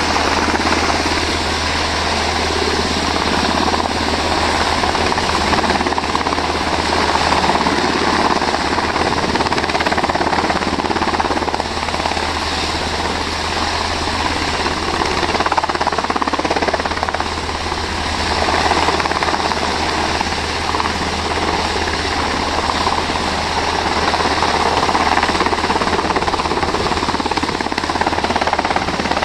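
UH-60 Black Hawk helicopter hovering close by: a loud, steady mix of rapid rotor chop and engine noise.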